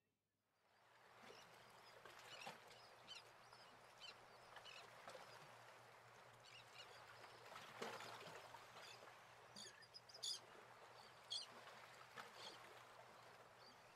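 Faint outdoor evening ambience with a soft hiss, broken by scattered short, high bird chirps, a few louder ones near the end.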